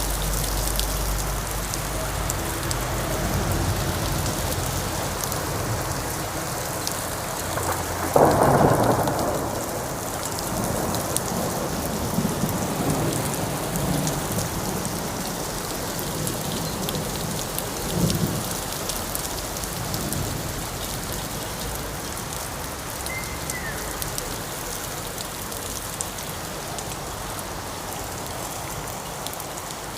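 Thunderstorm: steady rain falling throughout, with a sudden loud thunderclap about eight seconds in that rolls off into rumbling, and a smaller clap of thunder about ten seconds later.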